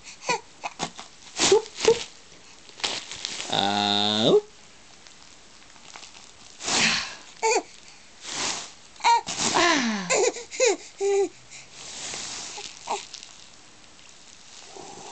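Bubble wrap being popped in sharp, irregular snaps, with a baby laughing and squealing between the pops.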